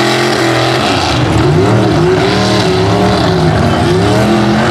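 Mud truck's engine revving hard under load as it pushes through deep mud, its pitch rising and falling several times.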